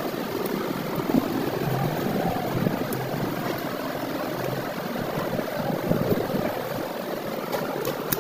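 Steady engine rumble, with a few short clicks near the end.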